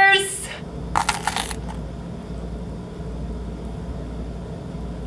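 Biting into a banana muffin with a dry outer crust: a short crackle of crisp clicks about a second in, then quiet chewing over a low steady hum.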